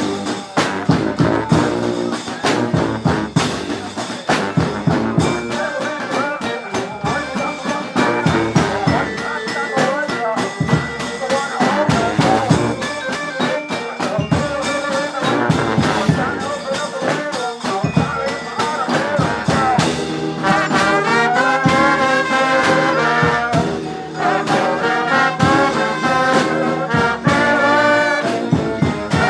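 A brass band playing live: trombones and trumpets carrying the tune and harmony over a steady beat of drum hits.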